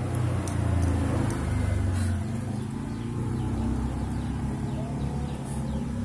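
Low, steady engine hum of a motor vehicle running nearby.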